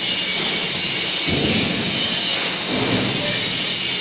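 CNC plasma cutting machine running: a steady, loud hiss with a high-pitched whine, the sound of the plasma torch and its air flow.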